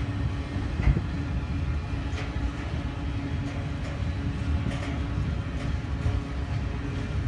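Double-stack container well cars of a freight train rolling past: a steady rumble of steel wheels on rail with a low hum. A few short clanks come through, the loudest about a second in.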